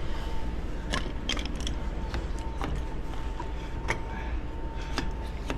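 Scattered light clicks and knocks of work on a burst braided water line, about six in all and a second or so apart, over a steady low hum.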